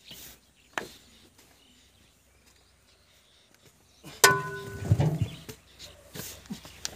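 Quiet open-air background, then about four seconds in a sharp metallic clank that rings briefly, followed by a few dull thuds.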